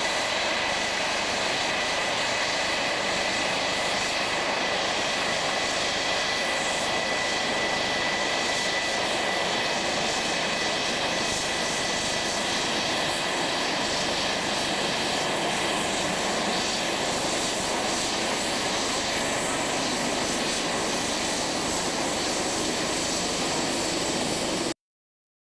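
F-4 Phantom's twin J79 turbojets running at taxi power: a steady, dense jet roar with a high whine that fades about halfway through.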